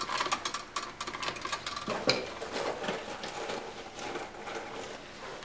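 Lineman's pliers twisting two stripped 14-gauge neutral wires together: a quick run of small metallic clicks and scrapes that thins out after about two seconds, with one sharper click about two seconds in, then fainter scattered clicks.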